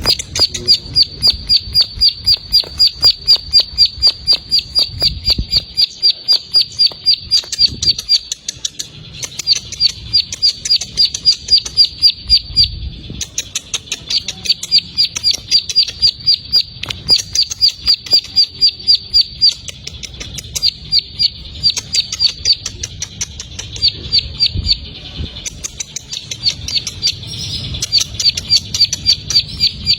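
Bar-winged prinia (ciblek sawah) singing its rapid 'ngebren' song, a long run of sharp high chirps at about five a second, in stretches of several seconds with brief breaks.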